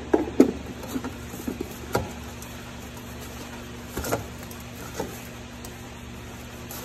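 Scattered light knocks and scrapes of a diesel fuel filter being spun back onto its housing by hand, with sharper knocks about two and four seconds in, over a steady low hum.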